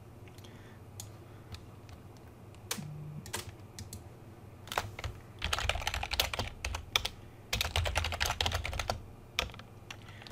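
Typing on a computer keyboard: a few single clicks in the first half, then two quick bursts of fast keystrokes past the middle.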